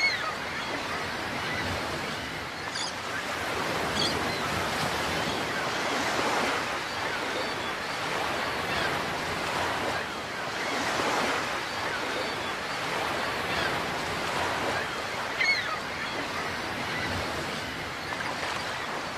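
Ocean waves washing and surging steadily, swelling and easing every few seconds, with a few brief high-pitched sounds over them.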